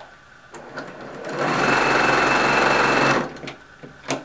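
Domestic electric sewing machine stitching a seam through patchwork fabric. It speeds up, runs steadily for about two seconds, then stops. Small clicks come before and after, with a sharp click near the end.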